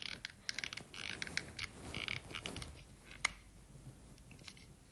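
Plastic casing of a Toyota Auris remote key fob creaking and clicking as the metal key blade is levered into its seam to pry the two halves apart. A run of small clicks and scrapes, with one sharper click a little past halfway, then fainter clicks.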